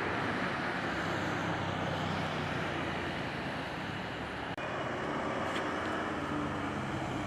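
Steady engine rumble mixed with a noisy roar, with a brief dropout a little past halfway through.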